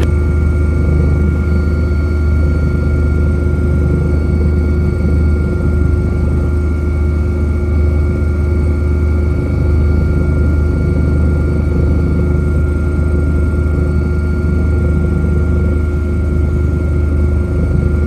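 Engine and propeller of a light aircraft in flight: a loud, steady drone whose pitch holds even throughout.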